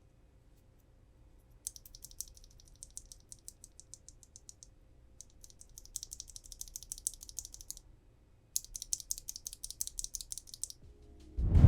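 Three runs of rapid, light plastic clicks, many a second, from Kailh Box Black mechanical keyboard switches being pressed and released. A loud low thud comes near the end.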